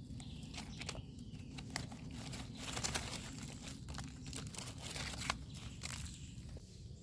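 Dry leaf litter crackling and a wild mushroom being handled, pulled up and its stem cut through with a small knife: a run of small crisp snaps and crunches that dies down near the end.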